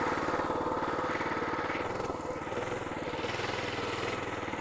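Prototype mini bike's small gasoline engine running steadily under way, its firing pulses even. It settles a little quieter and lower about two seconds in.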